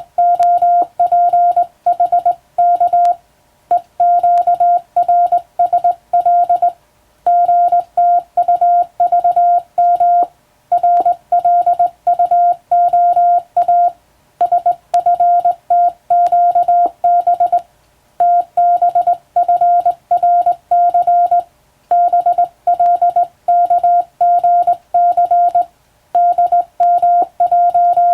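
Morse code sent on a telegraph key, heard as a single steady beeping tone keyed on and off in dots and dashes. The code comes in runs of a few seconds, each set off by a short pause.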